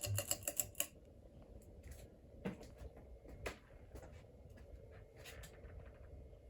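A quick run of sharp clicks in the first second as the fan's speed switch is worked round to low. Then the 1986 Fasco Great Room ceiling fan runs on low speed, a faint steady hum with scattered light ticks.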